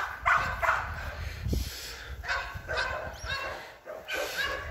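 Pit bull barking and yipping in short, quick, repeated calls, about two or three a second.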